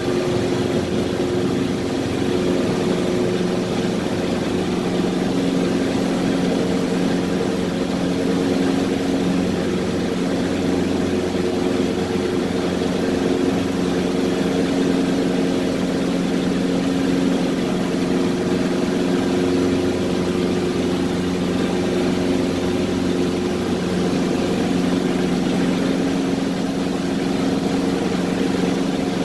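Cessna 150L's four-cylinder Continental O-200 engine and propeller droning steadily, heard from inside the small cockpit during the climb-out just after takeoff.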